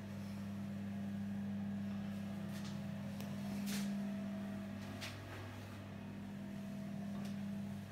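A steady low hum, with a few faint, brief swishes of the phone being handled as it moves.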